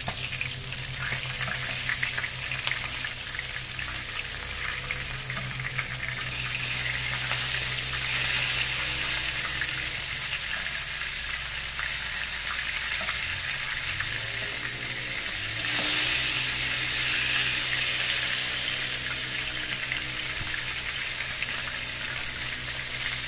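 Flour-coated round scad (galunggong) frying in shallow oil in a pan: a steady sizzle with fine crackle that swells about a third of the way in and is loudest around two-thirds in.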